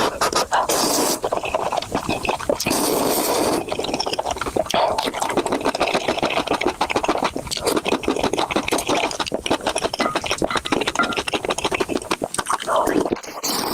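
Close-miked eating sounds: chewing Indomie instant noodles with cheese and bread, with a dense run of small mouth clicks throughout.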